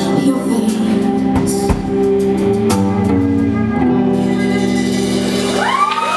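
Live band of electric guitars and drum kit playing the song's closing bars: a few drum and cymbal hits, then the last chord left ringing. Audience whoops and cheering start near the end.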